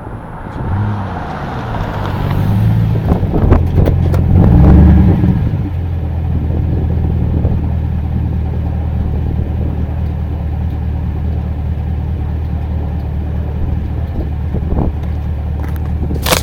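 Car engine revving, its pitch rising and falling and loudest around four to five seconds in, then running at a steady low, even drone.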